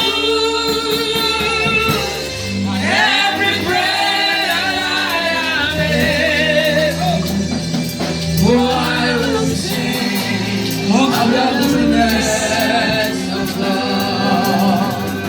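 Gospel singing in long, drawn-out held notes with a wavering vibrato, phrases changing every few seconds over steady, sustained low notes beneath.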